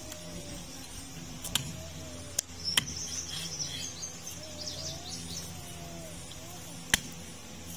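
Meat cleaver chopping goat meat and bone on a wooden log block: four sharp chops, the loudest two near three seconds in and near the end. Birds chirp in the background.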